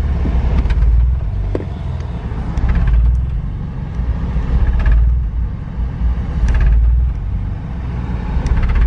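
BMW E46 330i running under way, a heavy low engine and road rumble that swells and fades about every two seconds. The car is running badly, which they blame on the ECU.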